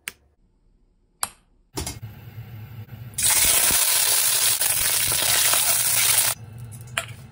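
Loud sizzling of food in a hot skillet for about three seconds, cutting off suddenly, over a steady low rush; two sharp clicks come before it and another near the end.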